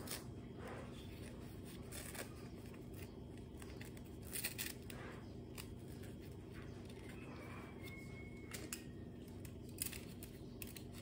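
Sparse soft rustles and brief sharp clicks from hands fastening and smoothing a disposable diaper, over a low steady room hum.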